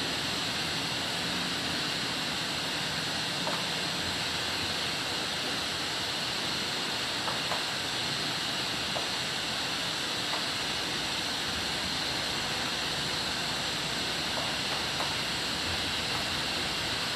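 Heavy typhoon rain falling, a steady hiss, with a few faint ticks.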